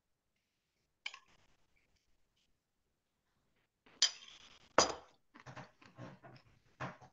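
A click about a second in, then a sharp clink and a heavier knock a little past the middle, followed by a run of small irregular clinks and knocks.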